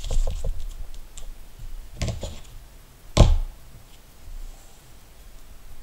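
Hands handling a small wrapped bundle on a tabletop cutting mat: light clicks and rustling, then one sharp knock just after three seconds in.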